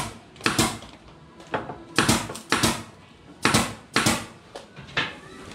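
Pneumatic nail gun firing nails into a wooden plank frame: about eight sharp shots at uneven intervals, each with a brief tail.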